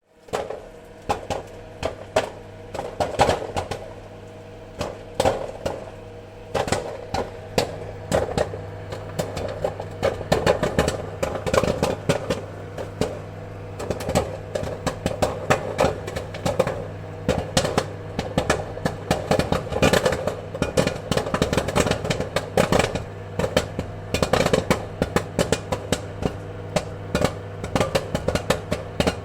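Popcorn kernels popping in irregular sharp pops over a steady low hum. The pops are scattered at first and come thick and fast from about ten seconds in.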